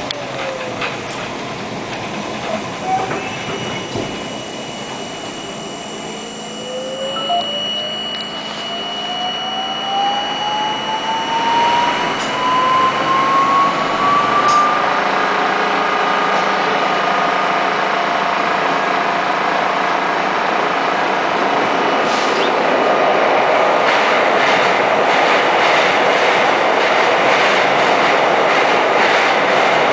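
Budd R32 subway train accelerating in a tunnel: the traction motor whine rises steadily in pitch over several seconds as the train picks up speed, then settles into loud, steady wheel-on-rail running noise, with rapid clicking over the rails near the end.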